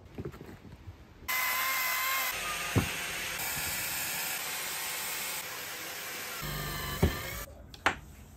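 Power saw cutting through wood: a loud, steady whine and hiss that starts suddenly about a second in and stops abruptly near the end, with a few sharp knocks.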